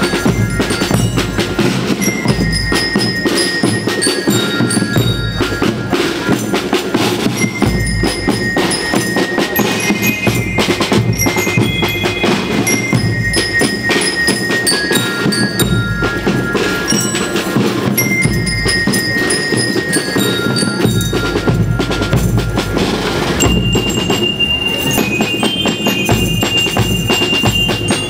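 School marching percussion band playing: bell lyres ring out a melody in clear, held notes over a steady beat of snare and bass drums.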